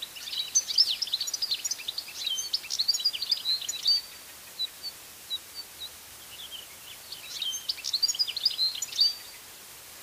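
European goldfinch (Carduelis carduelis) singing: a fast, liquid twittering run of high notes for about four seconds, then a few scattered single notes, and another burst of twittering near the end.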